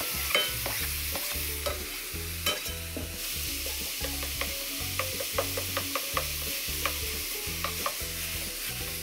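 Ground meat, chopped onion and carrot sizzling in oil in a deep frying pan, stir-fried with a turner that scrapes and taps against the pan many times.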